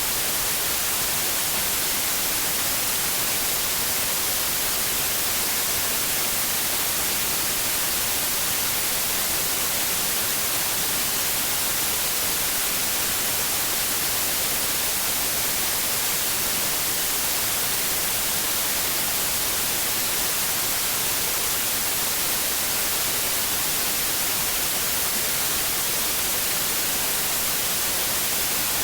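Steady white noise, an even hiss brightest in the high end, with no change or break.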